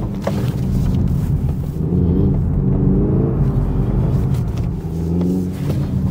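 Hyundai IONIQ 5 N accelerating hard during a drift attempt: its pitched, engine-like drive sound revs up and down several times over a steady low drone.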